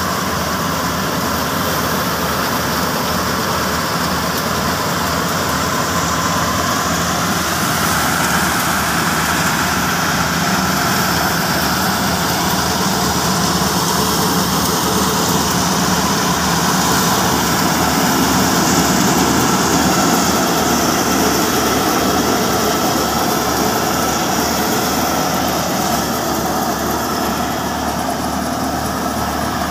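New Holland 480 tractor's diesel engine running steadily under load, powering a grain thresher, with the thresher's drum running in a steady mechanical din as crop stalks are fed in.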